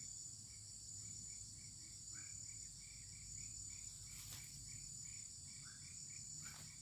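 Faint, steady, high-pitched insect chorus, with a run of short chirping calls repeating about three times a second and two faint clicks in the second half.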